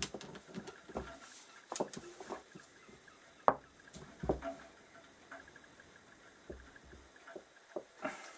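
Scattered light clicks and knocks of hand tools against a seized motorcycle brake master cylinder on a workbench, as a spanner is set on the brake bolt; the sharpest knocks come about three and a half and four seconds in.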